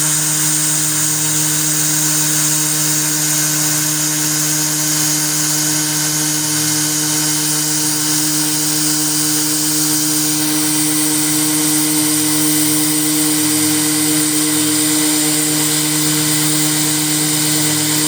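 CNC 3018 desktop router milling aluminium: the spindle runs at a steady pitch, with a steady high hiss from the cut throughout.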